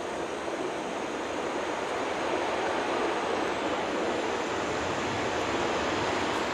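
Steady rushing roar of a jet airliner's engines, growing slightly louder about two seconds in.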